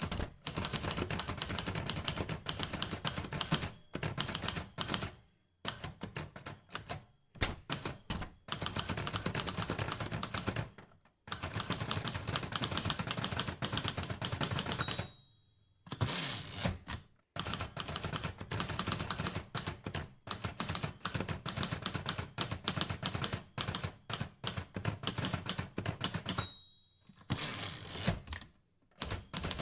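Manual typewriter typing in quick runs of key strikes with short pauses between them. Twice a short bell-like ring sounds, followed by a longer sliding rush, typical of the end-of-line bell and the carriage return.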